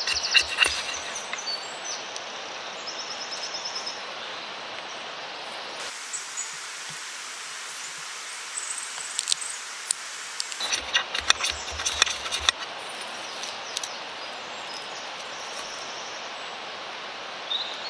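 Ferrocerium rod being struck over wood shavings: a quick run of rasping strikes for about a second and a half, starting about eleven seconds in, with a few scrapes at the very start. A steady outdoor hiss lies under it.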